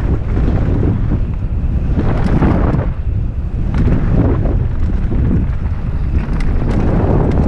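Wind buffeting the microphone of a camera on a mountain bike riding fast down a rocky dirt trail, with scattered knocks and rattles from the bike and tyres over loose stones.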